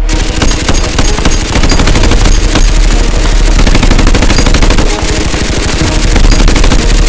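Rapid machine-gun-style gunfire, a dubbed sound effect for the Nerf blasters firing, loud and continuous with background music underneath.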